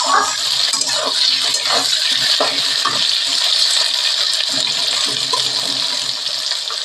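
Sliced potatoes and onions frying in oil in an aluminium kadai, a steady sizzle, with a metal spatula scraping and clinking against the pan at irregular strokes as they are stirred.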